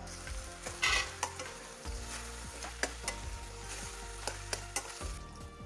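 Potato, tomato and onion curry sizzling in a metal kadai while a spoon stirs it, scraping and clinking against the pan. The loudest scrape comes about a second in.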